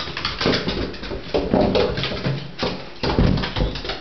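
A cat and a dog scuffling on bare wooden floorboards: claws scrabbling and bodies thumping in three loud bursts.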